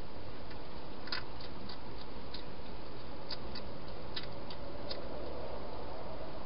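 Hedgehog crunching dry food: a run of about a dozen short, crisp clicks, irregularly spaced, over a steady hiss.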